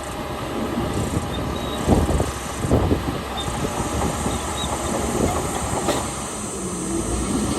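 Heavy earthmoving machinery at work: a diesel engine running steadily under irregular crunching and clanking knocks, the loudest about two and three seconds in.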